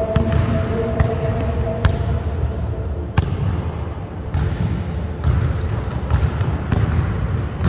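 Basketball bouncing on a hardwood gym floor: a few sharp bounces about a second apart in the first half, with short high sneaker squeaks on the floor later on.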